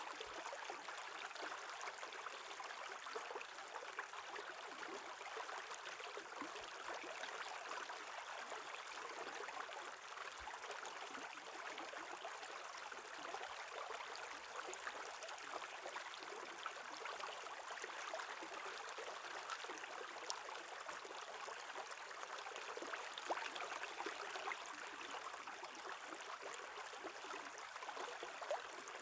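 Shallow stream water running and bubbling over stones at the edge of shelf ice, a steady, even babble.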